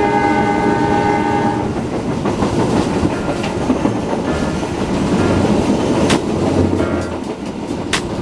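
Train horn sounding a steady chord that cuts off about a second and a half in, then the rumble of the train running on the rails with a few sharp clacks.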